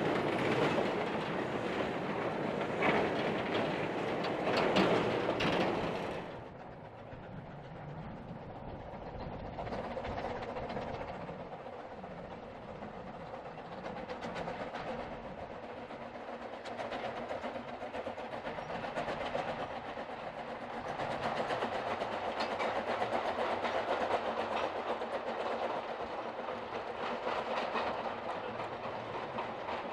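Narrow-gauge slate wagons rattling and clacking over the rail joints as they roll past close by. About six seconds in the sound cuts to a quieter, more distant train of wagons rolling along, which grows louder as it passes.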